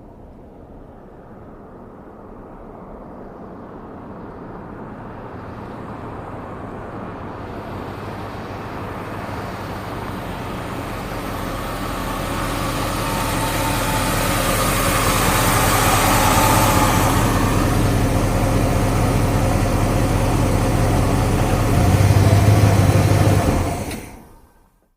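1970 Chevrolet SS's V8 engine approaching, growing steadily louder over about sixteen seconds, then running close by; a brief louder burst near the end, then the engine is shut off and the sound stops suddenly.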